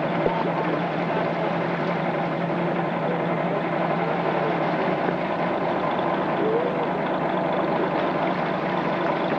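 Motorboat engine idling steadily, an even low hum.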